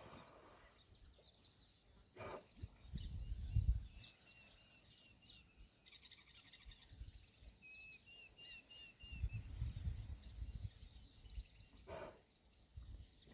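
A chorus of wild birds chirping and calling, with one bird repeating a short note about five times, twice over. Low rumbling gusts of wind hit the microphone twice.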